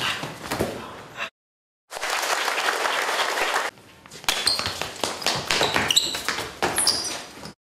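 A group of people clapping, a dense patter of hand claps, broken by about half a second of dead silence a little over a second in. Short high-pitched squeaks sound over the clapping in the later part.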